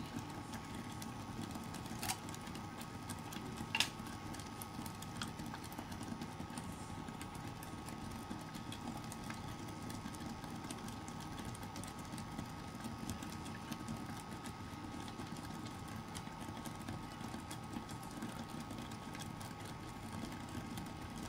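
Induction cooker running under a pot of simmering oats: a steady fan hum with a faint constant high whine. Two sharp clicks come in the first four seconds.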